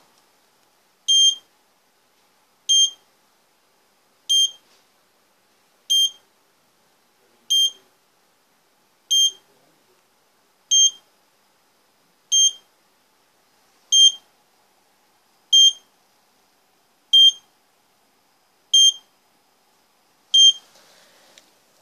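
AVISS RP ADDRESS IV fire alarm repeater panel's buzzer giving short high-pitched beeps, one about every one and a half seconds: the battery fault warning after its battery has been disconnected.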